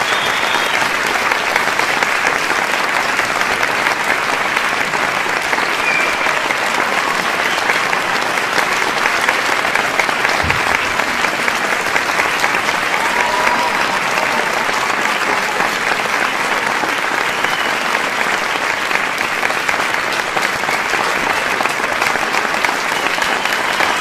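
A large crowd applauding at a steady level, with scattered shouts and cheers rising out of the clapping now and then.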